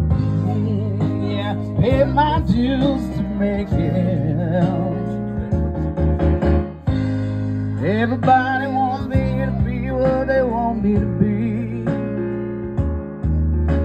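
A man singing into a microphone, amplified through a PA speaker, over steady keyboard-like instrumental accompaniment, with sung phrases a couple of seconds in and again around the middle.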